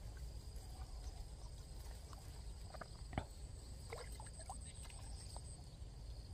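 Steady high insect trilling at two pitches over a low rumble, with a few faint clicks, the sharpest about three seconds in.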